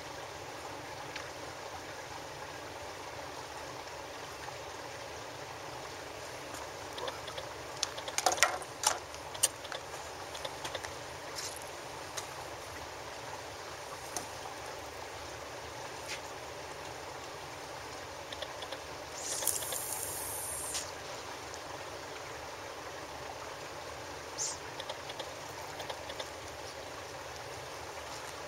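Steady wash of harbour water against the quay. A cluster of sharp clicks and knocks comes about eight seconds in, and a short high hiss about two-thirds of the way through.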